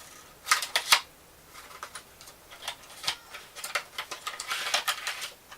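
Packaging being handled: a series of sharp clicks and crackles, two loud ones about half a second in, then a quicker, busier run.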